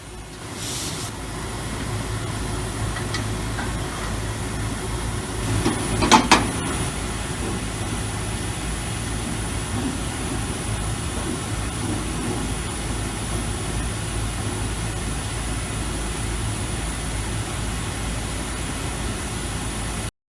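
Laser cutting machine running: a steady mechanical hum with a faint high steady whine, building up over the first two seconds. A short louder burst of clatter comes about six seconds in.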